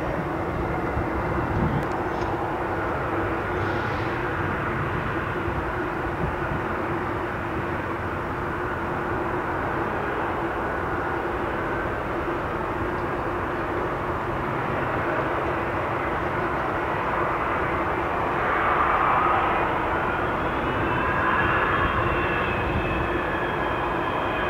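Douglas DC-8-72's four CFM56 turbofan engines running at taxi power: a steady jet whine over a rumble. The whine swells twice and rises slightly in pitch in the last quarter.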